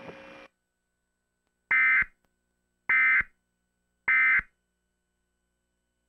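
Three short bursts of Emergency Alert System (SAME) digital data tones, each a harsh buzzing screech, evenly spaced about a second apart: the end-of-message signal that closes an EAS warning.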